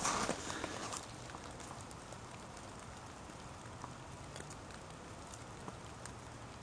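A brief rustle of handling at the start, then a faint steady hiss of light rain with scattered small drips.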